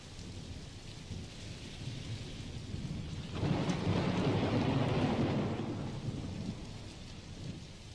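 Steady rain with a long rumble of thunder that swells about three seconds in and dies away a few seconds later.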